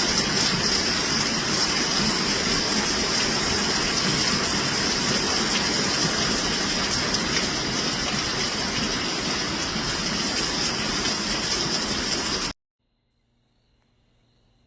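Fast-moving floodwater rushing and gushing in a loud, steady torrent, which cuts off suddenly near the end.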